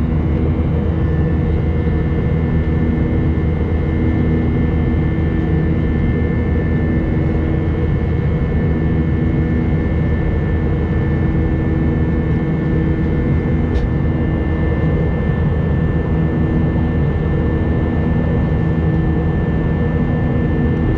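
Airliner cabin in flight: the jet engines and rushing air make a steady, unbroken drone, a deep rumble with a few steady whining tones over it.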